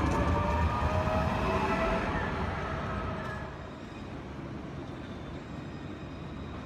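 A modern electric tram passing close by, its motors whining in several tones that slide in pitch over a low rumble from the running gear. About three and a half seconds in this gives way to quieter, steady street noise.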